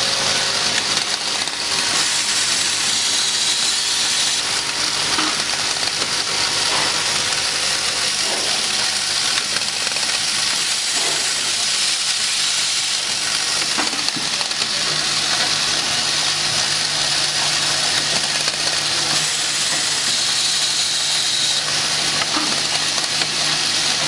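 Automatic needle roller bearing assembly machine running: a steady hiss over a low hum, with a few faint clicks.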